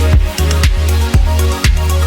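Background electronic dance music with a steady beat of about two kicks a second over a heavy sustained bass.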